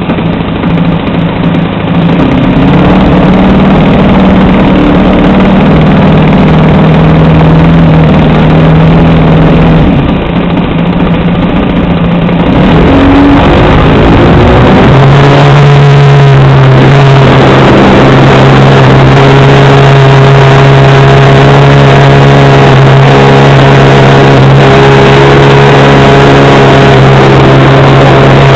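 OS FS 91 four-stroke model-aircraft engine running close to the microphone, loud and steady. About 13 seconds in the throttle is opened and the note swoops, then it holds a louder, steady run at higher power.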